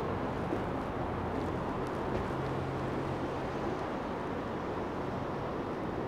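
Steady outdoor ambience of light rain over a wooded valley, an even wash of noise, with a faint low hum coming and going.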